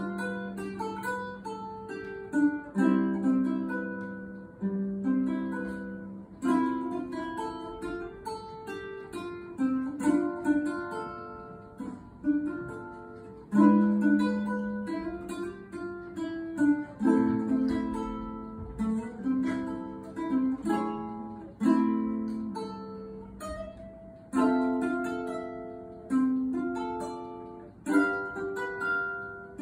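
Solo ukulele played fingerstyle: a slow, minor-key melody over chords, each phrase opening with a sharp pluck that rings and fades.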